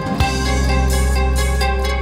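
Background music: quick repeated notes over a held bass note that settles in just after the start.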